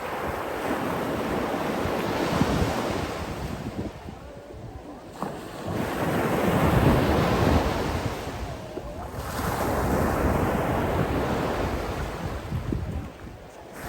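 Sea surf: waves rushing in three times, each surge swelling and fading over about four seconds.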